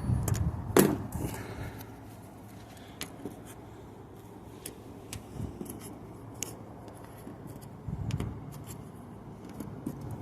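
Handling noise of small hard objects: a couple of sharp clacks about the first second, then scattered light clicks and rubbing over a low steady hum.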